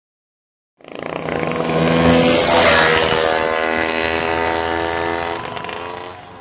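Vintage racing motorcycle engine at full throttle, coming in suddenly, loudest about two seconds in, then fading away with its pitch sinking slightly.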